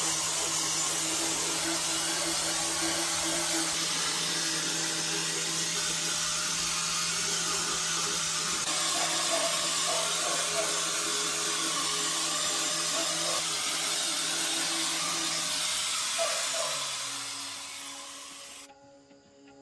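A motor-driven power tool runs steadily with a hissing whine. About three-quarters of the way through it is switched off and winds down in pitch until it stops.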